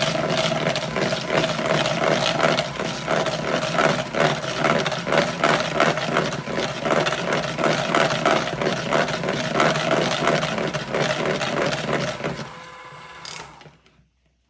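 Electric mixer running steadily with a regular pulsing, beating cream cheese, sugar, egg and vanilla into cheesecake filling. It stops about twelve and a half seconds in.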